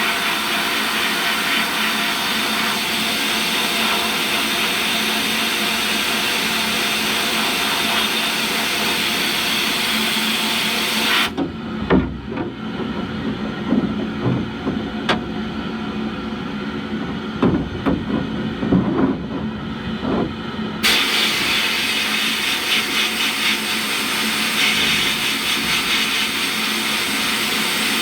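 Sandblast cabinet running: a steady loud hiss of the air nozzle blasting coal slag grit against a steel seat-back panel. About eleven seconds in the blast stops for about ten seconds, with scattered knocks and clunks, then the hiss starts again.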